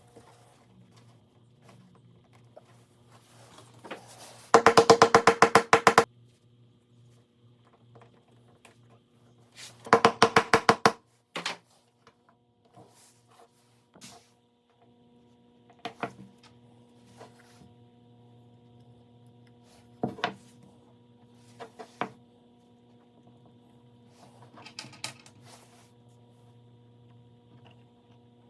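Two bursts of rapid, even tapping, about ten strokes a second and each lasting a second or so, then a few scattered single knocks, over a faint steady hum.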